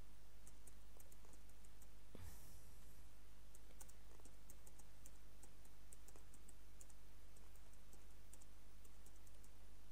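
Computer keyboard keys clicking in irregular runs of typing, over a steady low electrical hum; a single soft bump about two seconds in.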